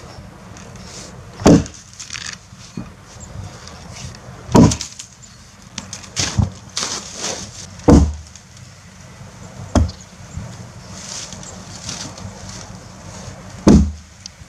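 Helko Werk Tasmanian axe chopping into a fallen log: five heavy blows, unevenly spaced two to four seconds apart.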